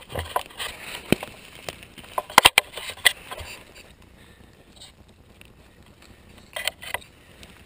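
Twigs and forest-floor litter crackling and snapping as they are handled close to the microphone. There is a burst of sharp cracks about two and a half seconds in and another short cluster near the end.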